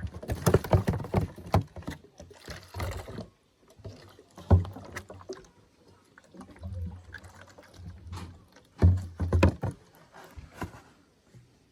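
Irregular knocks, clicks, scrapes and rustles of objects being handled and moved about, with a few louder thuds about half a second, four and a half seconds and nine seconds in.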